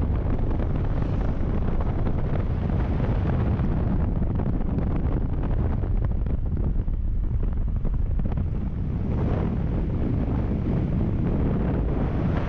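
Wind rushing and buffeting the microphone of a camera on a moving motor scooter, a steady roar that cuts off suddenly at the end.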